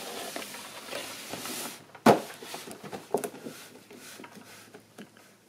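A large cardboard toy box being handled and turned around in the hands, its surface rubbing and scraping, with a sharp knock about two seconds in and a few lighter taps after.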